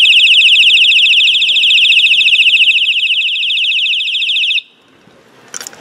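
Electronic bicycle horn sounding a loud, high-pitched, rapidly warbling siren tone for about four and a half seconds, then cutting off suddenly.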